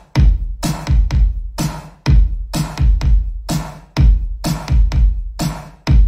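Electronic dance music played through an active 15-inch speaker and an active dual 18-inch subwoofer for a sound check. Deep kick-drum and bass hits come in a pattern that restarts about once a second.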